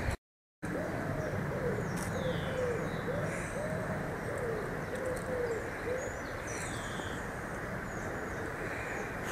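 A pigeon cooing in a run of arched, rising-and-falling coos, about two a second, that fades out after a few seconds. Small birds chirp faintly over a steady background hiss.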